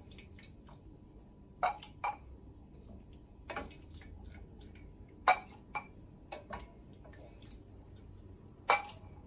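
Scattered light clinks and knocks of a wooden spoon against a stainless steel pot and a glass jar on a glass plate as cherry jam is spooned into the jar; about eight separate strikes, the loudest about five seconds in and near the end.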